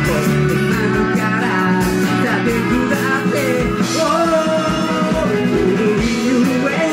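Live rock band playing a song: a singer sings the melody over electric guitars, keyboard and a steady drum beat.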